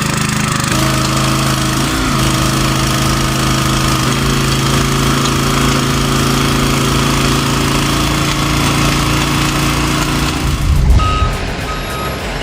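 Heavy diesel machinery engine running steadily, its pitch shifting a couple of times. Near the end a reversing alarm starts beeping in a steady on-off rhythm.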